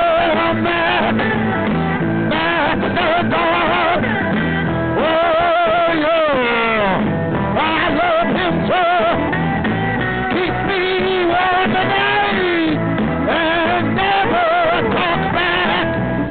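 Blues-rock band music with guitar, carried by a lead line of wavering notes that bend and slide in pitch over a steady lower accompaniment.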